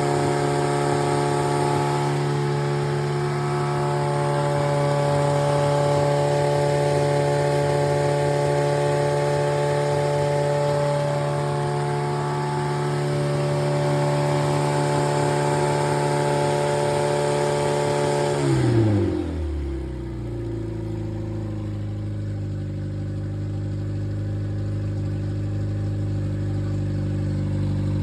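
Freshly rebuilt Triumph Spitfire 1500 four-cylinder engine test-running at raised speed, steady. About two-thirds of the way in, the revs drop quickly and it settles to a steady idle.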